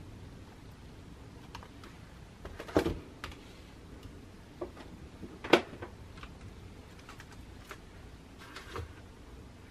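Makeup packages being set down in a drawer: scattered soft taps and clicks, with two louder knocks about three and five and a half seconds in, over faint room tone.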